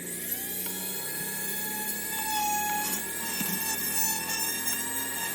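Small electric drill running with a steady high whine whose pitch wavers slightly as it bites, drilling out small plastic model parts.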